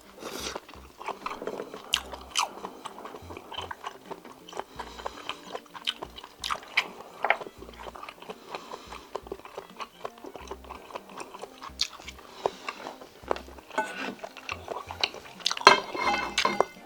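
Close-miked eating of spicy stir-fried small octopus with rice: repeated chewing and biting with many short sharp clicks and smacks, busiest and loudest near the end.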